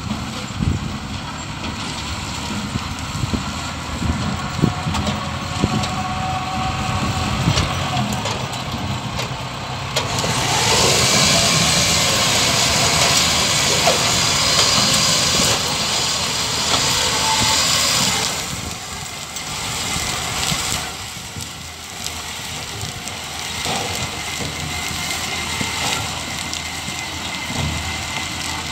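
Tractor and sugar beet harvester engines running, with a louder steady hiss for about eight seconds in the middle.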